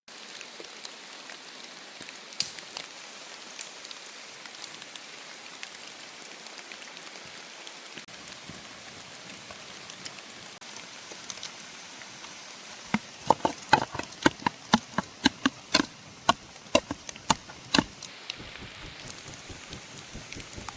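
Steady rain falling on the forest around the campfire. A little over halfway in, a run of about fifteen sharp knocks, roughly three a second, lasts some five seconds.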